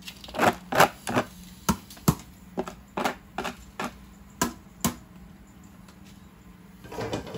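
Chopsticks tapping sharply, about a dozen irregular knocks over the first five seconds, as dry rice noodles are pushed off a bamboo basket into a wok of boiling water.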